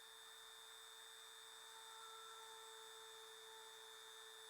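Faint, steady high-pitched whine with a lower hum under it, typical of a small rotary tool running while drilling a bubble out of cured resin.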